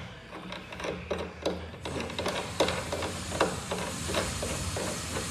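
Plastic lever clamping knob being turned down a threaded bolt on the cable jack's plastic frame: a run of small irregular clicks and scrapes, a few a second.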